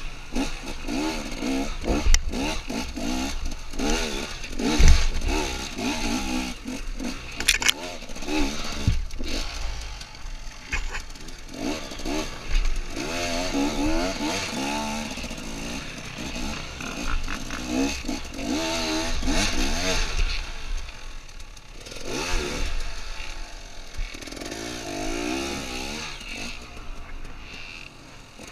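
Enduro dirt bike engine heard close up from the rider's helmet, revving up and down in short repeated bursts as it picks its way along a rocky trail. Occasional knocks and clatter come from the bike over the rocks.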